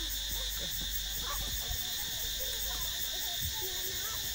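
Steady, high-pitched chorus of insects buzzing without a break, with faint short voices underneath.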